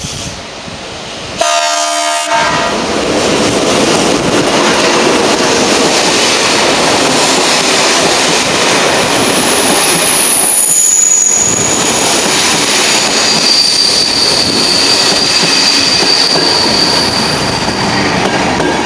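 Locomotive-hauled České dráhy passenger train passing close by. A horn blast of about a second comes near the start, then a steady loud rush of wheels and coaches on the rails, with a high-pitched wheel squeal in the second half.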